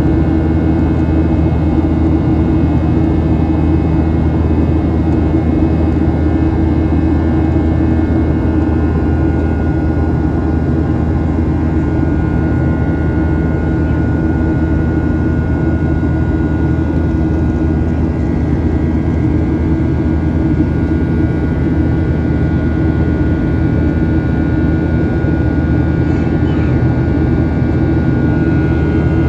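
Steady cabin drone of a Boeing 737-900ER's CFM56-7B turbofan engines during the climb, heard from inside the cabin beside the engine: a low rumble with several steady whining tones over it.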